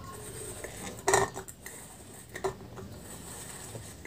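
Empty aluminium drink can being turned by hand on a tiled floor, giving a few short metallic knocks and scrapes against the tile, the loudest about a second in.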